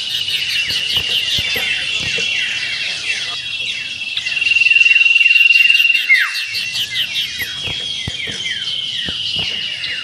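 Common iora (cipoh) song: a rapid, high trill held on one pitch that comes and goes, loudest a little after the middle, over a dense run of quick downward-slurred whistles and chips.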